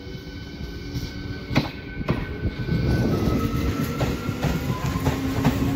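ICF-built MEMU electric multiple unit train moving past close by, its wheels clicking over the rail joints above a rumble that grows louder about three seconds in. A thin whine of steady tones steps down in pitch as it goes.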